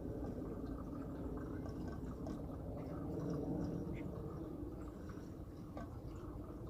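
Kerosene being poured slowly into the small filler opening of a kerosene heater's tank: a steady trickle of liquid with a few faint drips.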